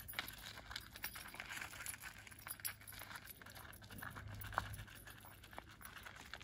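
Faint crunching and clicking of footsteps on loose desert gravel: a woman walking and a dog in rubber-soled boots trotting on a leash. The clicks are scattered and uneven, with the sharpest one about four and a half seconds in.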